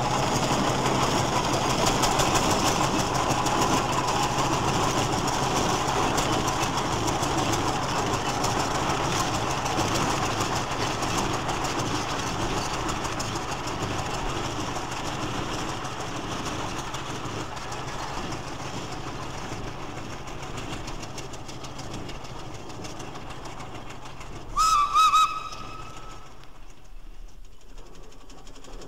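Fowler agricultural steam traction engine No. 9689 running past and drawing away, its working noise slowly fading. Near the end it gives two short blasts on its steam whistle.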